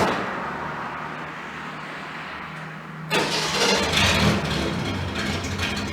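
An engine running with a steady low hum, which turns suddenly louder and rougher about three seconds in.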